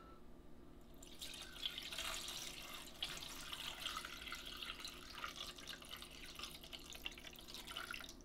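Water poured in a stream from a plastic measuring cup into the tank of a Hornady Lock-N-Load Sonic Cleaner 2L ultrasonic cleaner, a steady splashing that starts about a second in.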